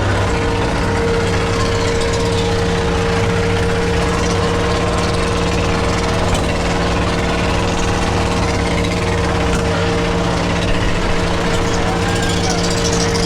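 V8 engine held at high revs at one steady pitch during a burnout, over a steady hiss from the spinning tires. Near the end a fainter wavering tone comes in above it.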